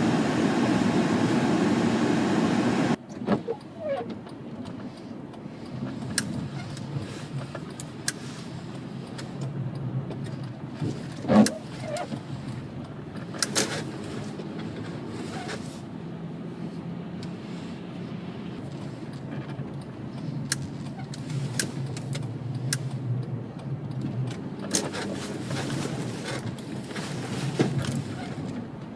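Car cabin noise while driving: a loud steady rush for the first three seconds that cuts off abruptly, then a steady low road-and-engine hum with scattered light clicks and knocks from the interior.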